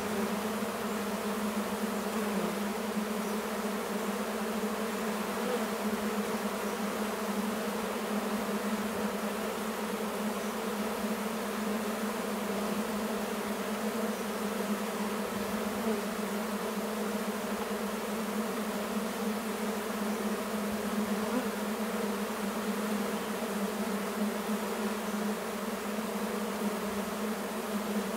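A crowd of honey bees buzzing in flight, a steady, unbroken hum with many overtones.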